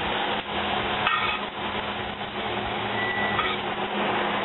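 A steady hiss over a low hum, with a few light knocks of the frying pan and utensils as it is handled, and a short high beep about three seconds in.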